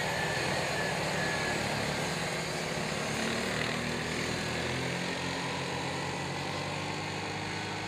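Two youth ATVs racing on a dirt oval, their engines running hard, with the engine pitch rising and falling as they work around the track.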